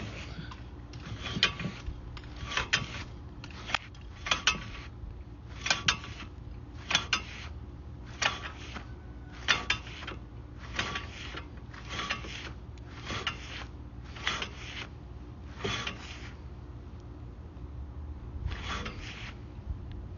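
Sewer inspection camera's push cable scraping through the pipe in repeated hand strokes, about one every second and a half, over a steady low hum; the strokes pause for a couple of seconds near the end.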